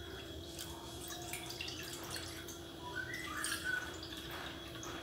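Water poured in a thin stream from a steel saucepan into a small steel measuring cup, trickling and dripping faintly.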